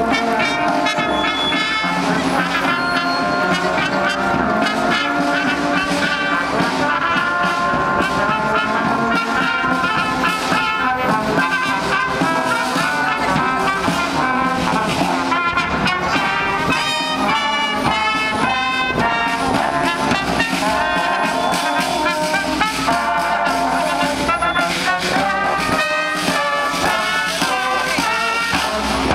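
A marching brass band playing a tune: trumpets, trombones and a sousaphone, with a drum.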